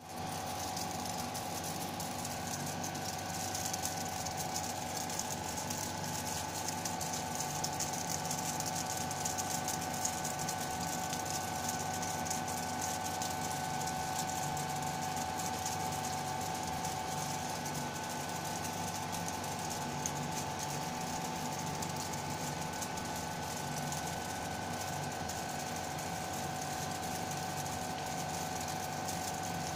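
Flake ice machine running: a steady mechanical hum with a constant whining tone.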